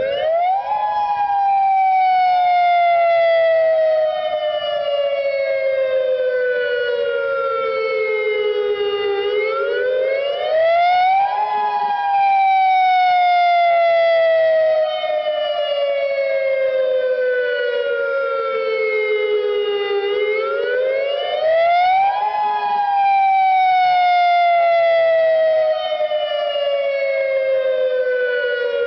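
Emergency alert siren sounding a slow wail for a drill. Each cycle sweeps up quickly in pitch over a second or two, then slides slowly down for about nine seconds. It peaks three times.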